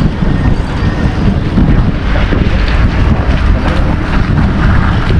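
Wind buffeting the camera microphone: a loud, continuous low rumble.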